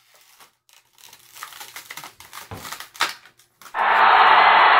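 Crinkling and clicking of a Funko Pop box's clear plastic insert as the vinyl figure is worked out of it. Near the end a loud, steady hiss starts suddenly.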